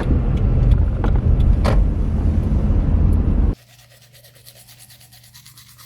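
Loud low rumble with a few sharp clicks. It cuts off abruptly about three and a half seconds in, giving way to a quiet room with a steady low hum and a fast, even scratching.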